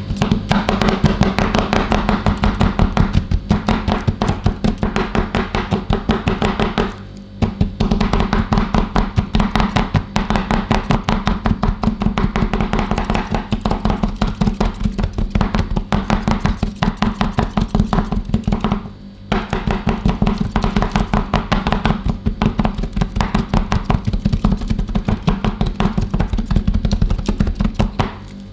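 Two metal spatulas chopping rapidly on a frozen steel ice-cream-roll pan, breaking Twix bars into the cream base, with two short pauses.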